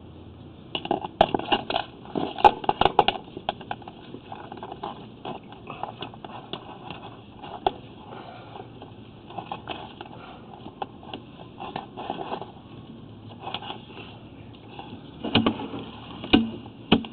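Irregular crackling, clicking and scraping from a sewer inspection camera's push cable being fed down a 4-inch sewer pipe, busiest in the first few seconds and again near the end.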